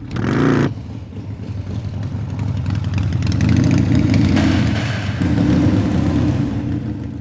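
Harley-Davidson Fat Boy V-twin motorcycle engine revving briefly, then running at low speed, growing louder through the middle.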